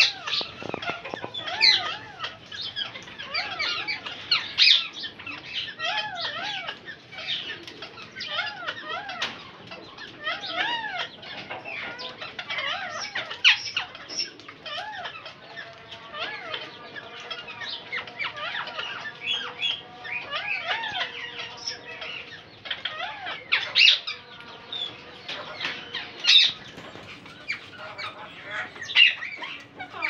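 Caged Indian ringneck parakeets chirping and calling over and over in short rising-and-falling notes, with an occasional louder sharp call.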